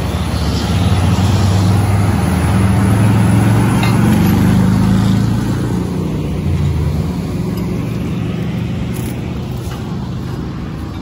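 Excavator diesel engine running at close range: a steady low drone, loudest in the first half, easing off after about six seconds.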